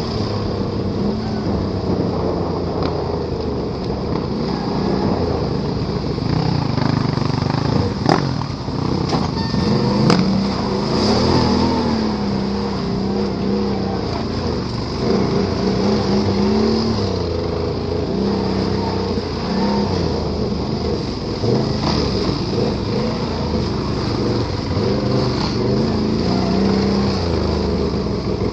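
Can-Am Renegade ATV's V-twin engine running under load while riding off-road, its pitch rising and falling with the throttle. Two sharp knocks come about eight and ten seconds in.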